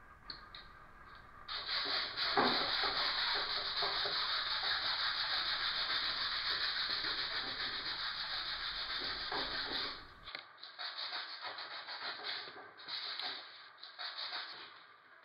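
Continuous rubbing and scraping over a painting's surface, starting about a second and a half in. Near the end it breaks into shorter, separate strokes.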